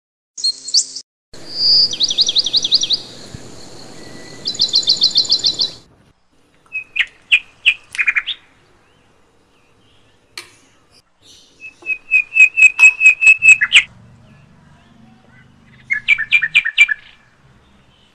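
Bird calls: several runs of quick, repeated high chirps, each run lasting a second or two, with short pauses between them.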